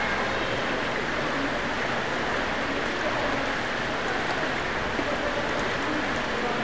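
Steady wash of water splashing and sloshing as people run upright through the water of a swimming pool.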